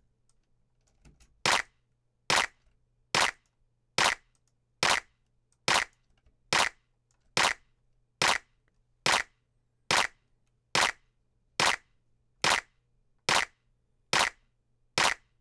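A layered electronic clap sample looping on the beat, one sharp clap about every 0.85 s starting about a second and a half in. It plays through iZotope Ozone 5's harmonic exciter in mid-side mode while the high band on the stereo sides is being turned up for extra brightness.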